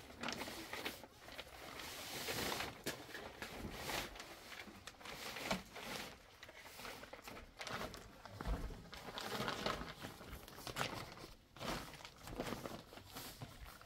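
Irregular rustling and crinkling with scattered light knocks and clicks.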